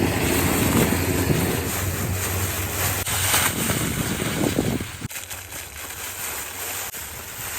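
Wind buffeting the microphone, a low rumble that eases off about five seconds in.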